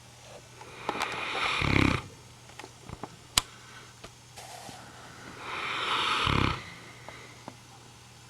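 Neapolitan Mastiff snoring in its sleep: two long snores about four seconds apart, each a swelling breathy rasp that ends in a low rattle. A single sharp click comes about three and a half seconds in.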